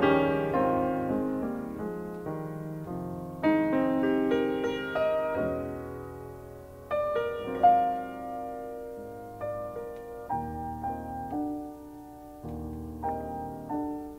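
Background piano music: slow single notes and chords, each struck and left to ring and fade.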